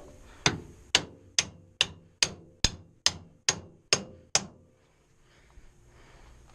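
About ten evenly spaced hammer blows, about two a second, each with a short metallic ring, driving at a stuck engine part; the blows stop about 4.5 seconds in.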